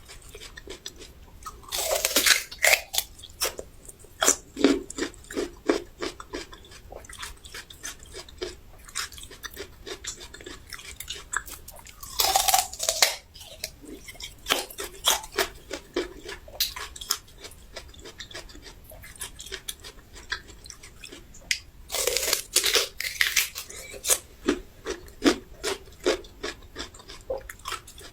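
Raw ginger root being bitten into and chewed: three louder crunching bites about ten seconds apart, each followed by a run of steady chewing.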